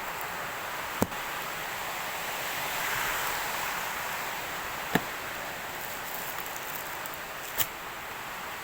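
Steady hiss with three sharp clicks or taps: one about a second in, one about halfway through and one near the end.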